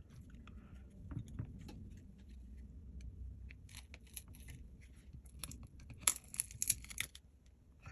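Small sharp clicks and crackling scrapes of hand tools working on the inside of a Samsung Galaxy A70 phone during disassembly. They come in two clusters, around four seconds in and then more densely from about five and a half to seven seconds in.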